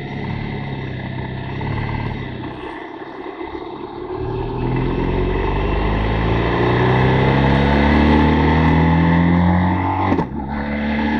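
BMW R 1200 GS boxer-twin motorcycle engine pulling away, running low at first, then revs climbing steadily for several seconds; a brief dip at an upshift about ten seconds in, after which the revs climb again.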